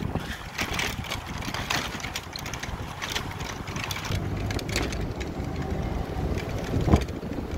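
Wind buffeting the microphone over the rumble of a moving vehicle on a road, with a sharp thump about seven seconds in.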